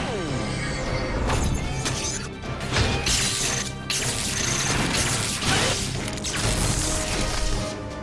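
Dramatic cartoon background music mixed with battle sound effects: a falling whoosh at the start, then a run of crashes and mechanical clanks.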